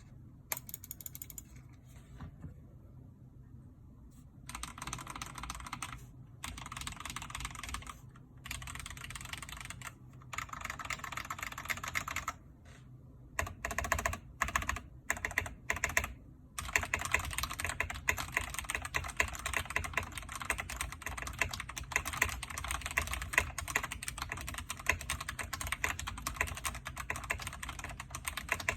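Logitech Pro X mechanical keyboard with tactile Gateron Brown switches and stock ABS keycaps being typed on. A few keystrokes and a pause come first, then short bursts of typing with gaps between them and some single keypresses. From about halfway in, the typing runs steady and fast.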